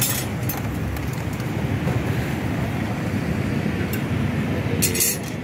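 Steady low rumble of street background noise, with a few faint clicks and a brief crisp rustle near the end.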